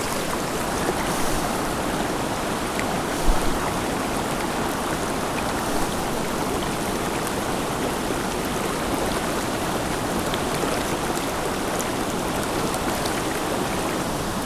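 Small mountain creek rushing steadily over rocks, with a brief low knock about three seconds in.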